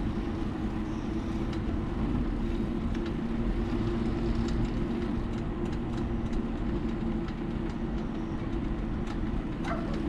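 Car driving slowly, heard from inside the cabin: a steady engine and road hum with faint light clicks and rattles.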